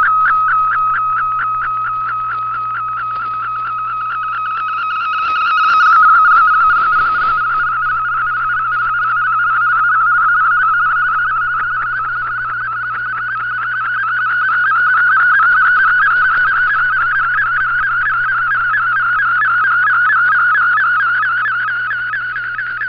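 MFSK digital picture transmission from a shortwave broadcast, heard through an Icom IC-R8600 receiver while the image is being decoded line by line. A single whistling data tone pulses rapidly at first, then warbles quickly up and down in pitch, over a steady low hum.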